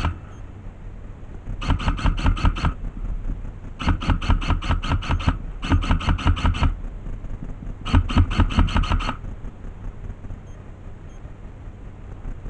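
Airsoft gun firing on full auto: four bursts of rapid, evenly spaced shots, each burst about a second long, with short pauses between them.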